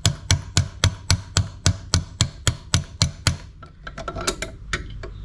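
A small leather hammer tapping steadily on a socket extension, about three taps a second, driving a wrist pin out of a two-stroke piston. The taps stop about three seconds in, and fainter, irregular metal clicks follow.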